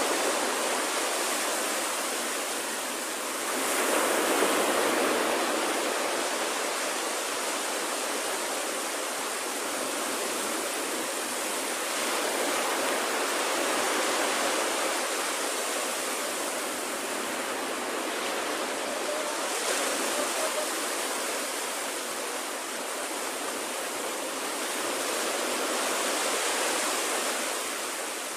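Small waves breaking and washing up a sandy beach: a steady hiss of surf that swells louder a few times as waves break.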